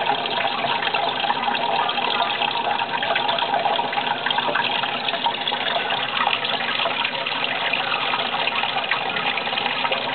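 Steady running water, trickling and splashing without a break.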